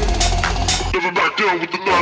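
Background electronic dance music with a heavy, steady beat; the bass and beat drop out about a second in.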